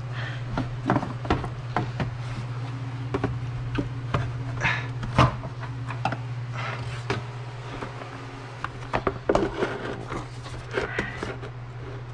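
Scattered plastic clicks, knocks and scrapes as the pleated paper air filter is worked out of the plastic airbox, over a steady low hum.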